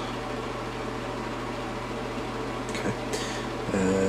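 Bathroom ceiling exhaust fan running, a steady hum and rush of air, with a soft click about three seconds in.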